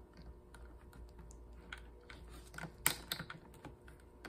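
Small clicks and scrapes of hard plastic as a stubborn snap-fit tab on a Shark Duo vacuum head's housing is pried at, with a sharper run of clicks about three seconds in.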